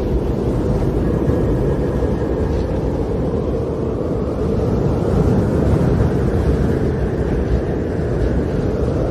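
Snowstorm wind blowing steadily: a loud, deep, even rushing noise with no gaps or distinct events.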